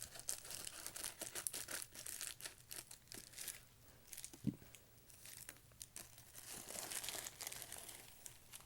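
Packaging crinkling and tearing as a Blu-ray package is opened by hand, in two spells of dense crackling with a single dull knock about halfway.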